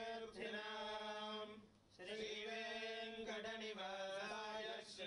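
Male Vedic priests chanting Sanskrit mantras as a Vedic blessing (vedashirvachanam), held on one near-steady note with a brief break for breath about two seconds in.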